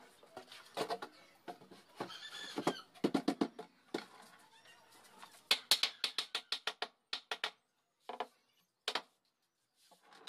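Claw hammer driving nails into the plywood panels of a speaker box: a short run of quick strikes, then a longer run of about four or five blows a second, then two single blows near the end. Chickens cluck in the background in the first few seconds.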